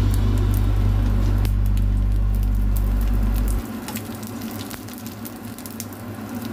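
Dried fish frying in hot oil in a pan: a steady sizzle with many small crackles. A low steady hum runs underneath and cuts off suddenly about three and a half seconds in, leaving the sizzle alone and quieter.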